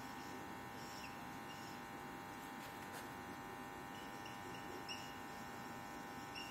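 Faint short squeaks of a marker drawing coil symbols on a whiteboard, several in quick succession, over a steady electrical buzzing hum.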